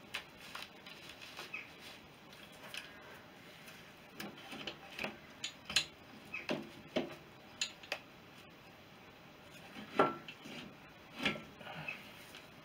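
Cast-iron cylinder barrel of a BSA B31 single being rocked and eased up its studs by hand: irregular metal clinks and knocks, the loudest about ten seconds in.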